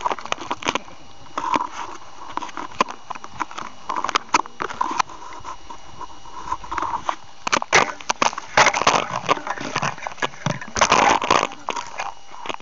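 Handling noise picked up by a small keychain camera taped to a model rocket: hands and fingers rubbing and tapping on the camera and the rocket's body tube, making a run of clicks and scrapes that gets busier about halfway through.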